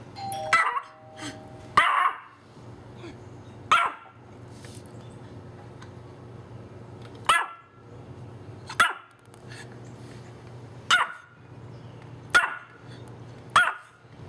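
A Pomeranian barking at the doorbell: about eight sharp single barks, spaced one to a few seconds apart. A doorbell chime sounds as two steady tones at the start.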